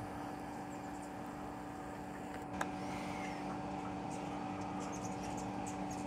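Steady low room hum made of a few fixed tones, with one faint click about two and a half seconds in and a few faint, short high chips in the second half.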